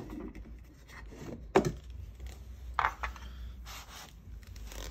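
Vacuum cleaner parts being handled: a few sharp knocks and clatters, the loudest about a second and a half in, with rubbing and scraping between.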